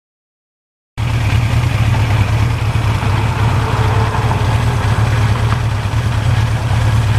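1982 Suzuki GS1100E's air-cooled inline-four engine running steadily at idle, cutting in suddenly about a second in after dead silence.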